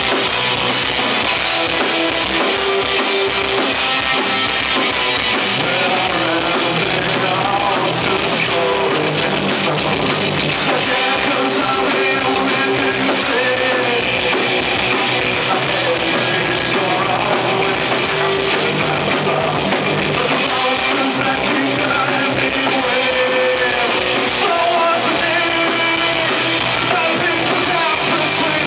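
A rock band playing live: two electric guitars, electric bass and a drum kit, with a man singing lead.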